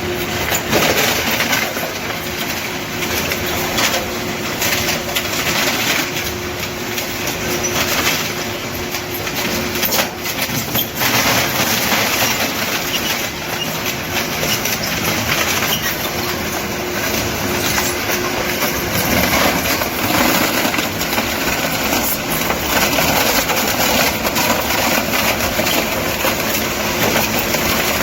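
Integrated styrofoam volume-reduction machine (crusher, blower and melter) running: a loud, continuous mechanical din with irregular clattering and crackling over a steady hum.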